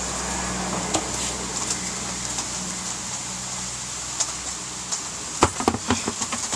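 Steady low hum, then a cluster of knocks about five and a half seconds in as a removed tire and alloy wheel is set down on a concrete floor.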